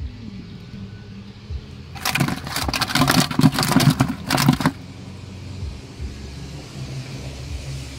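Freshly caught tilapia thrashing and flapping in a plastic bucket, a quick run of knocks and slaps that lasts just under three seconds, starting about two seconds in. A steady low motor hum runs underneath.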